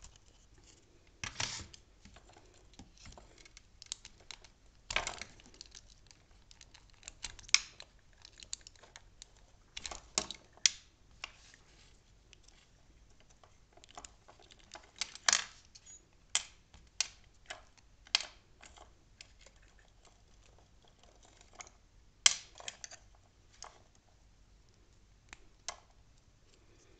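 Irregular small clicks, taps and light rattles of hands handling electrical wires, connectors and plastic turn-signal lamp parts.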